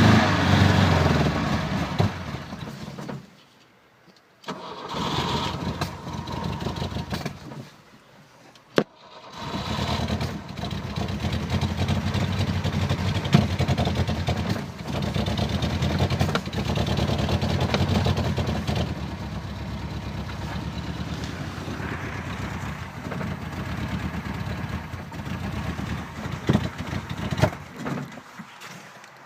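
Engine cold-started in about −20 °C frost: several start attempts broken by two short pauses, one about 3 seconds in and one about 8 seconds in, then a long stretch of steady rhythmic engine sound from about 10 seconds on that tails off near the end.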